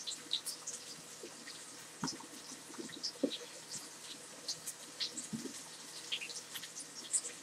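Quiet kitchen handling: soft knocks as cut strawberry pieces are set down on a plate of salad greens, over faint irregular crackling.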